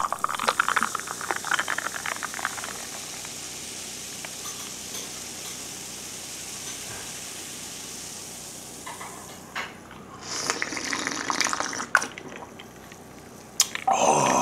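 Mountain Dew poured from a 2-litre plastic bottle into a glass, followed by a steady high fizzing hiss from the carbonation in the glass. It is poured again in the second half, loudest near the end.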